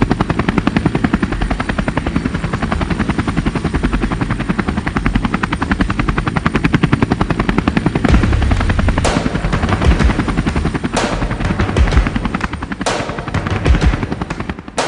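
Rotor blades chopping with a fast, even beat, with several heavier thumps in the second half.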